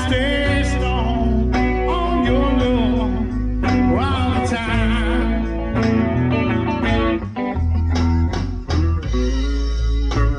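Live band playing a slow country-soul ballad: an electric guitar lead with wavering, vibrato-laden notes over a second guitar and deep bass notes.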